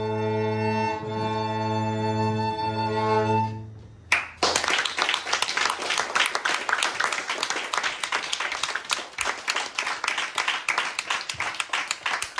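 A string ensemble of violins and cellos holds a final chord for about three and a half seconds, then stops. About four seconds in, audience applause begins and carries on steadily.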